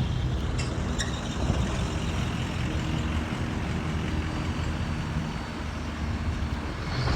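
Street traffic: a motor vehicle's engine running with a steady low rumble over road noise.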